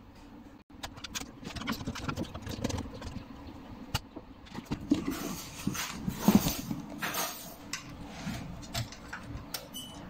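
Handling noise from working on an open desktop PC case: irregular clicks, knocks and rustling of metal and plastic parts being handled, busiest and loudest about six seconds in.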